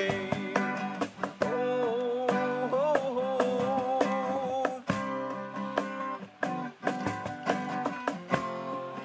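A man sings to his own strummed acoustic guitar. His voice drops out about halfway through while the strumming goes on.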